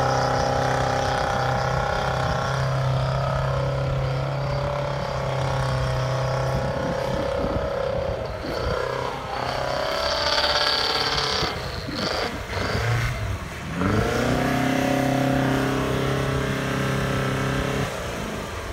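Off-road 4x4 engine running at high revs under heavy load as it churns through deep snow. The pitch holds steady, dips and climbs back about eight seconds in, then drops and rises again near the fourteen-second mark.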